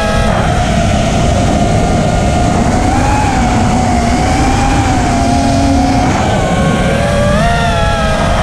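FPV racing quadcopter's brushless motors and propellers whining, heard from the quad's onboard camera; the pitch wavers up and down with the throttle over a heavy low rumble of wind on the microphone.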